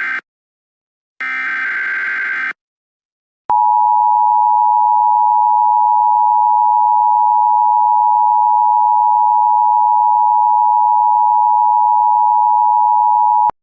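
Emergency Alert System tones: the end of one burst and then a full burst of raspy SAME header data, followed by about ten seconds of a steady, piercing attention tone that cuts off abruptly.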